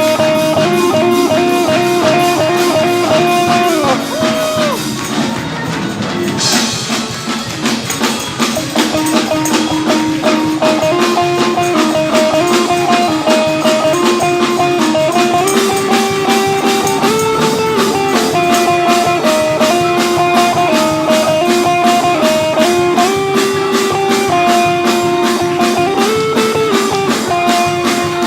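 Church band playing an upbeat instrumental, with a fast steady drum beat under held chords that step up and down.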